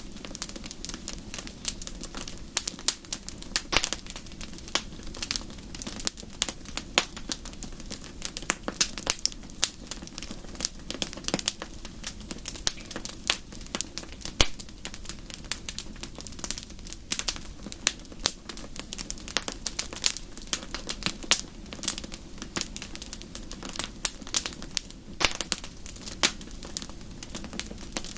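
Wood fire crackling in a fireplace: dense, irregular sharp pops and snaps over a low, steady background.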